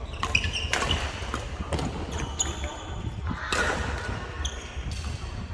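Badminton rally on an indoor court: rackets sharply hitting the shuttlecock several times, with shoes squeaking on the court floor between the hits, in a reverberant sports hall.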